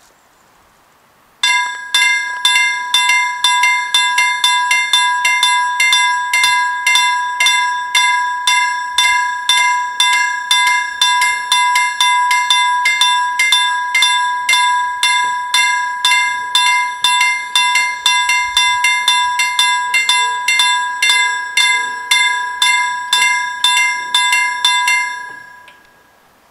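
Level-crossing warning bells ringing with rapid, evenly repeated strikes, about three a second, warning of an approaching train while the red lights flash and the barriers lower. They start about a second and a half in and cut off near the end, once the barriers are down.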